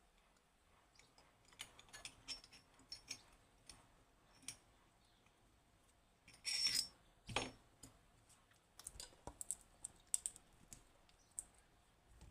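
Light metallic clicks and clinks of a small lever padlock and lock-picking tools being handled, with a brief scrape about six and a half seconds in and a quick run of clicks near the end.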